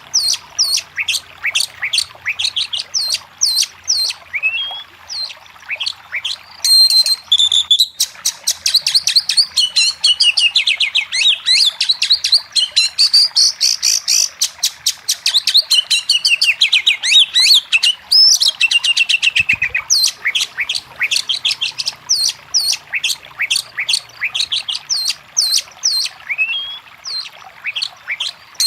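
Oriental magpie-robin (kacer) singing continuously: a fast stream of high chirps and whistled phrases, getting busier with dense rapid trills through the middle stretch.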